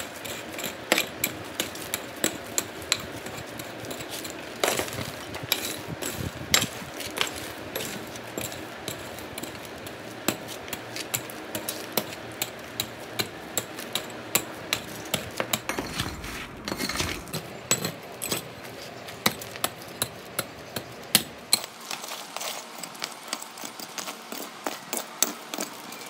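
Steel hand pick striking and scraping broken concrete rubble and stones, an irregular run of sharp clinks and knocks with gritty scraping between them.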